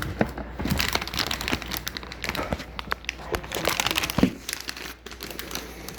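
Packaging being handled: irregular crinkling and rustling with scattered small clicks and knocks as parts are unpacked.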